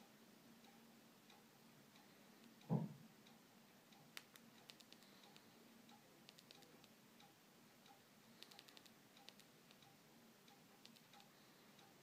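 Near silence with a faint, regular ticking like a clock. About three seconds in comes one low thump from the phone being handled, and several bursts of small sharp clicks follow as the Sony Ericsson Aino's keys are pressed to move through its menus.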